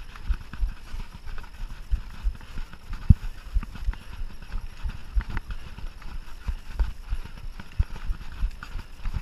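Mountain bike jolting over rough trail: irregular low knocks, about two to three a second, with light rattling.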